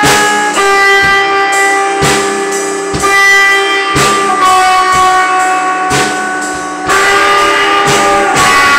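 Instrumental band music: held guitar chords over drum hits about once a second.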